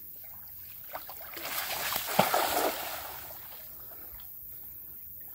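A cast net thrown out over the water and landing: a rush of splashing that builds over about a second, is loudest with a sharp slap about two seconds in, and dies away.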